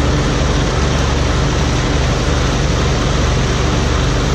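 Steady, unchanging drone of a heavy vehicle engine under a constant noisy rush.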